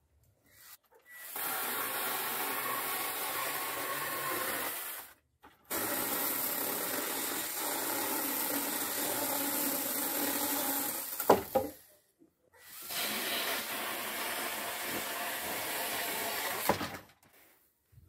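Worx WG324E 20 V cordless pruning chainsaw cutting through wooden poles in three steady runs of a few seconds each, with short pauses between them. A single sharp knock comes near the end of the second cut.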